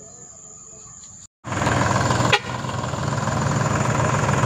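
After a cut, a New Holland T610S tractor's diesel engine running steadily with a constant low drone. There is a brief sharp sound about two seconds in.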